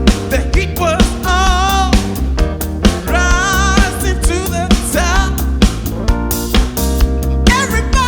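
Live disco band with a vocalist: a strong bass line and steady drum beat under a singer holding long notes with vibrato.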